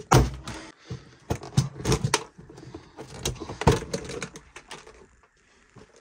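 Irregular knocks, clicks and clatter as an RC monster truck and its parts are handled, with the loudest knock right at the start. The clatter dies away about five seconds in.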